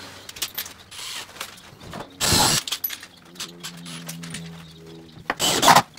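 Cordless drill running steadily for about two seconds as it drives a screw into the wooden coop frame, with a louder clatter shortly before and another near the end.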